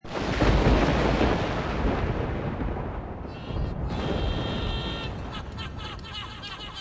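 A loud, deep rumbling boom that starts suddenly and fades slowly over about three seconds. About three seconds in, music with guitar begins.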